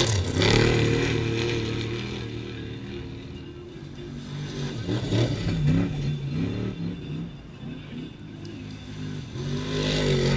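Desert race trucks passing at speed, engines revving hard, their pitch rising and falling as they go by. The loudest pass comes right at the start, and another truck comes past near the end.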